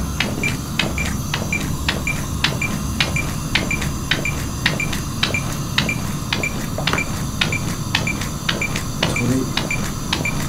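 A defibrillator's CPR metronome beeps about twice a second to pace chest compressions. Chest compressions on a CPR training manikin click and thud in time with it.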